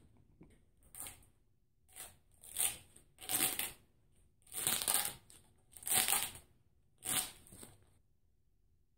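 Old adhesive tape being peeled off a small engine in a series of about seven short rips, each a fraction of a second long.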